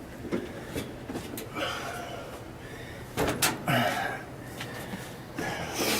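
Several knocks and bangs from a clothes dryer's door being handled, with short scraping and rustling sounds between them.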